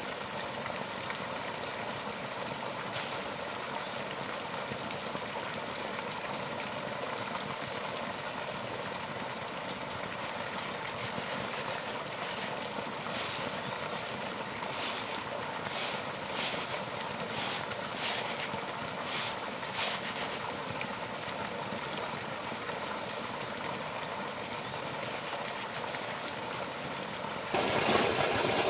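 Steady rushing outdoor background noise, with a run of light taps about halfway through. Near the end comes a loud hissing rush as unhusked rice grains are poured from a woven bamboo tray into a hollow log mortar.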